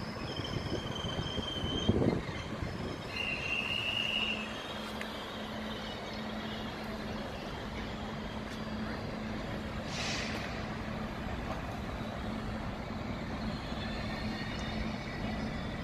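Electric trains standing at a station platform: a steady low hum, with two short high squeals like train wheels or brakes in the first four seconds, a knock about two seconds in, and a brief hiss of air around ten seconds in.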